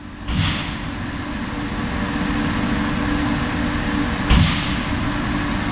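Steady mechanical hum and rush of an indoor range's ventilation, with two muffled thuds, one just after the start and a louder one about four seconds in.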